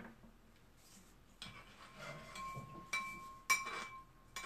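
Metal spoon clinking against a ceramic bowl: a few light taps, the loudest about three and a half seconds in, each leaving the bowl briefly ringing.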